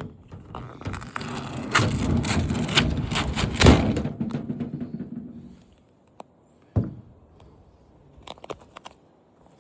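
Parts of a flat-screen TV being pried and pulled off by hand: scraping and rattling with sharp knocks for about five seconds, then quiet with one heavy thud and a few light clicks.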